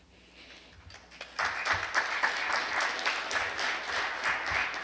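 Audience applause, starting about a second and a half in and carrying on steadily.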